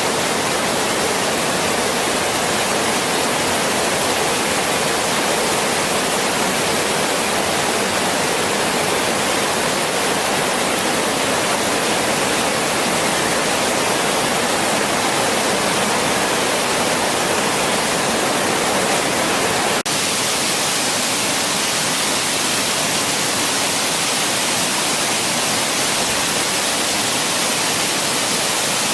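Waterfall on the River Braan in spate after heavy rain: a steady, loud rush of falling water. There is a brief dropout about twenty seconds in.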